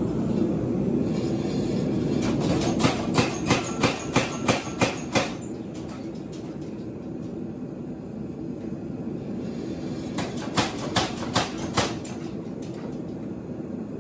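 Power hammer striking a top tool held on a red-hot railway spike: a run of about eight sharp metal blows, some three a second, beginning about three seconds in, then four more near the end. A steady low rumble of the running machine underlies the blows.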